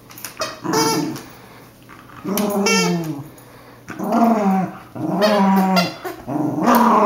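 West Highland white terrier growling at a toy ball, in about five bursts of a second or so each with short pauses between them: a play-fight growl at the ball.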